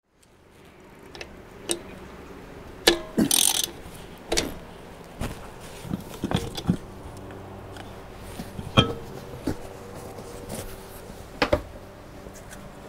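Scattered clinks and knocks of hands and tools working on an ATV's front wheel hub and disc brake, with a short rustle about three seconds in and a faint steady hum underneath.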